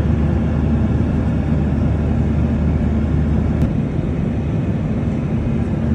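Steady in-flight drone inside a passenger airliner's cabin: jet engine and airflow noise, mostly a low rumble.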